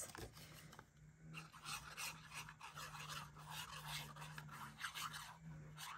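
Faint, quick scratchy rubbing of paper being pressed down onto a card, over the faint steady hum of a string trimmer running outside.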